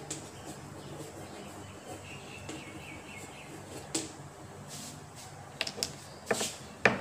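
Chalk tapping and scratching on a chalkboard as a line of words is written, with a few sharper knocks near the end, over a low steady hum.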